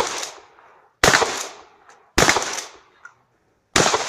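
Shotgun shots fired at a steady pace, roughly one every second or so: three sharp shots, each dying away over about half a second, with the tail of an earlier shot at the very start.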